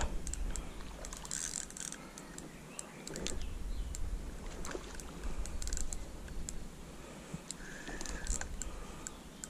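Fishing reel clicking and whirring as a hooked carp is played on the line, over a low rumble.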